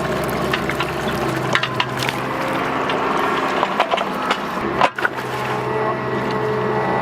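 Bobcat mini excavator's diesel engine running steadily, with scattered clicks and knocks as the machine works the trench.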